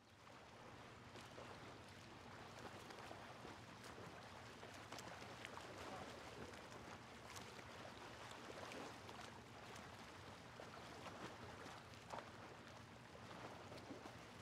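Near silence: a faint steady hiss and low hum, with scattered soft clicks.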